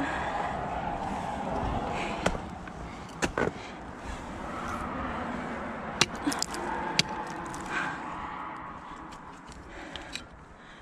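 Ice tools (CAMP ice axes) being swung and planted into waterfall ice: several sharp strikes a few seconds apart, over a steady background hiss.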